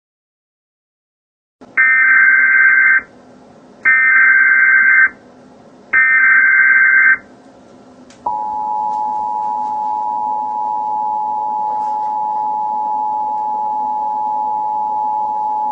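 Emergency Alert System tones. After a moment of silence come three bursts of SAME header data, a harsh digital buzz, each about a second long and about a second apart. A little past the halfway point the steady two-tone EAS attention signal (853 and 960 Hz together) begins and holds, announcing an Emergency Action Notification.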